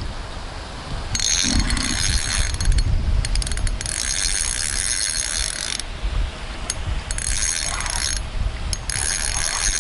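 Mifine Feeder 3000 spinning reel's drag ratcheting in four stretches of a second or two, as a hooked fish pulls line off against the bent picker rod. Wind rumbles on the microphone underneath.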